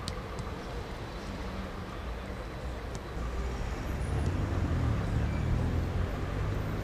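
Low, steady rumble of road traffic that grows louder about halfway through, as if a vehicle is passing close by. A few faint sharp knocks, like footballs being kicked, come near the start and about three seconds in.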